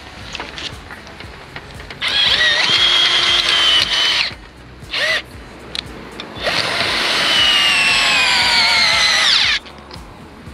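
Cordless drill fitted with a socket driving a Ground Dog screw-in anchor peg into grassy ground. It makes two long runs, with a short burst between them, and the pitch falls through the second run.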